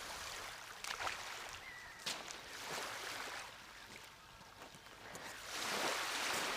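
Small waves washing on the beach: a hiss that rises and falls, swelling loudest near the end, with a couple of sharp clicks.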